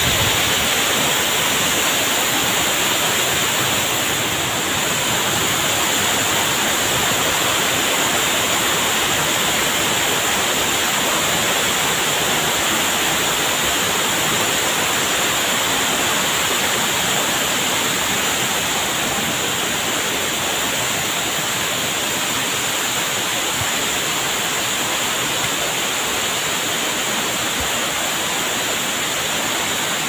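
Waterfall and stream water rushing in a steady, unbroken roar.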